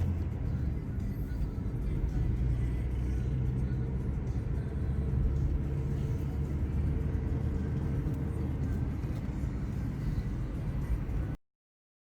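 Steady low rumble of a car driving, heard from inside the cabin, with music faintly in the background; it cuts off suddenly near the end.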